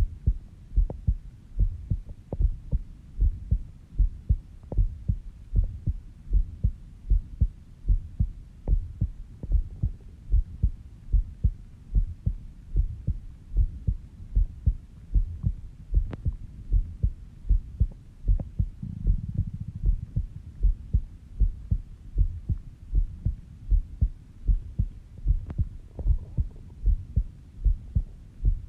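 A sleeping person's heartbeat heard close up: a slow, steady, deep lub-dub of about 70 beats a minute.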